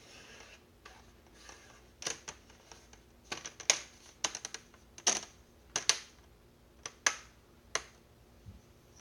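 Irregular sharp plastic clicks and taps, about a dozen, from a laptop's plastic screen bezel being handled and pressed onto the lid, with a soft rustle near the start.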